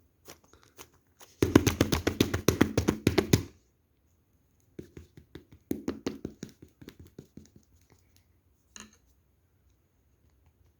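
Hands tapping and handling something: a quick run of sharp clicks, about ten a second, for about two seconds, then a softer run of taps, and a last single tap near the end.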